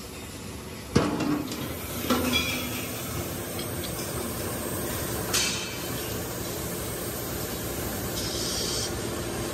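Steel gas cylinder being lowered into a drum of water, with water sloshing and splashing and a sharp metal clunk about a second in, then another knock. The pressurised cylinder is being submerged for an underwater leak test.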